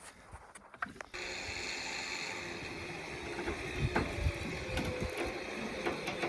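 Stick-welding arc struck about a second in, then crackling and hissing steadily as the rod burns.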